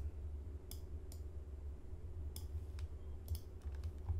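A handful of separate, sharp computer mouse and keyboard clicks spread across the few seconds, over a steady low hum.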